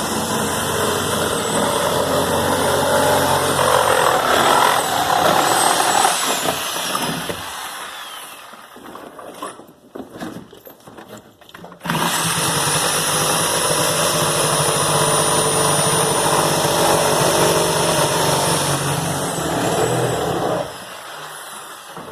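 A motor running steadily with a high whine that dips and recovers in pitch. It fades out around seven seconds in, leaves a quieter gap with a few knocks, then starts again abruptly about twelve seconds in and cuts off suddenly near the end.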